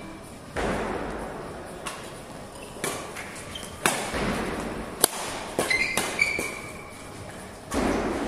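Badminton rally: sharp racket strikes on the shuttlecock about once a second, with thuds of footwork and a few brief squeaks near the middle.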